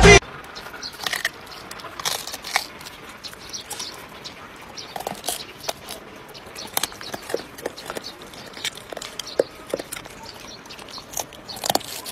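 A dog chewing and crunching food, in irregular short crunches and clicks.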